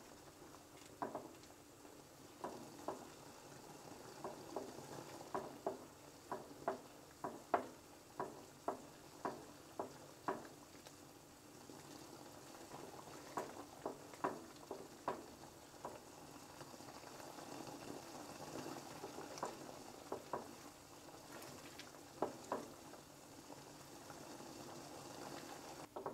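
Thick cream sauce simmering and bubbling in a nonstick frying pan, with frequent short, irregular pops, as it is stirred with a silicone spatula. The sauce is being cooked down to thicken.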